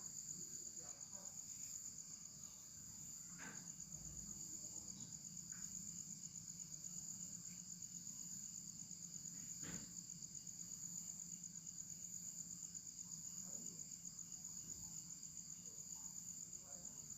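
Faint, steady high-pitched chirring of insects, with a few soft clicks.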